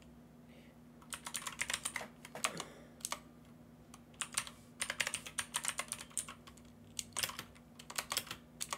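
Typing on a computer keyboard in quick runs of keystrokes with short pauses between them, over a faint steady low hum.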